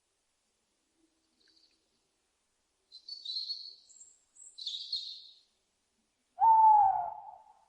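Owl calls: two raspy, high screeches about three and four and a half seconds in, then one loud hoot near the end that dips slightly in pitch.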